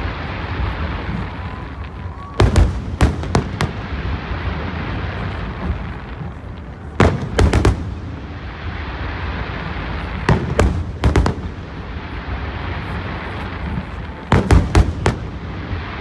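Aerial fireworks shells bursting in volleys of several sharp bangs, a volley about every four seconds, with a steady hiss between them.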